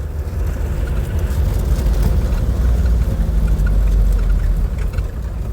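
Heavy low rumble of a vehicle on the move, swelling to its loudest about four seconds in.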